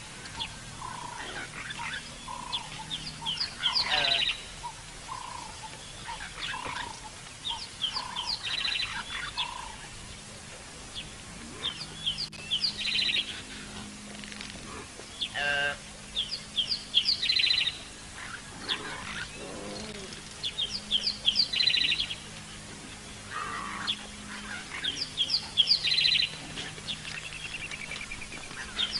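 Wild birds singing. One bird repeats a phrase of quick high notes about every four seconds, while another gives a series of lower single notes about once a second that stops about a third of the way in.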